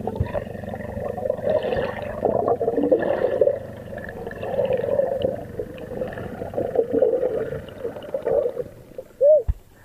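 Muffled underwater gurgling and bubbling, picked up by a camera submerged in the sea, with scattered clicks and knocks. Near the end there is a short squeak that rises and falls, the loudest sound here.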